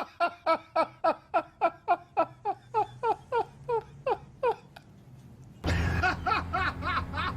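A person laughing in a long run of evenly spaced 'ha' bursts, each falling in pitch, that slowly space out and fade. About five and a half seconds in, this cuts abruptly to a steady low hum with chuckling voices over it.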